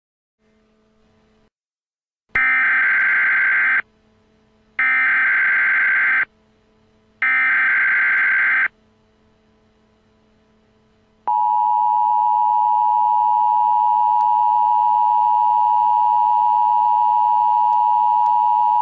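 Emergency Alert System header: three short bursts of SAME digital data screech, each about a second and a half, then a loud, steady attention-signal tone that comes in about eleven seconds in and holds. This sequence marks the start of an emergency alert broadcast, here a blizzard warning.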